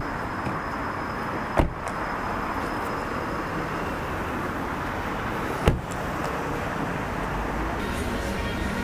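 Steady road noise of a car in traffic, with two sharp clicks about four seconds apart.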